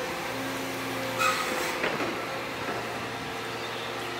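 Liebherr R926 compact excavator running steadily, its engine and hydraulics giving a steady hum with a faint whine as the tiltrotator bucket works the slope. About a second in comes one louder brief scrape and knock.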